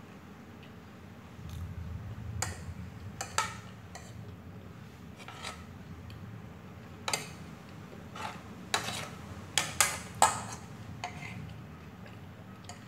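Metal fork clinking and scraping against a plate of noodles: about a dozen sharp, irregular clinks, closest together in the second half.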